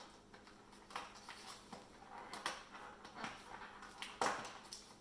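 Crinkling of plastic packaging and small clicks from a cardboard box as a StickBot figure is pulled out of it, with a louder rustle about four seconds in.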